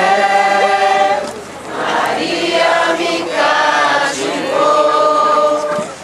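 A group of voices singing a Marian hymn together, in long held notes with short breaks between phrases.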